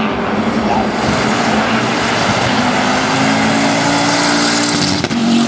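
Race car passing at speed on the circuit, its engine running loud with a steady held note for a couple of seconds, broken by a brief sharp dip about five seconds in before the note picks up again.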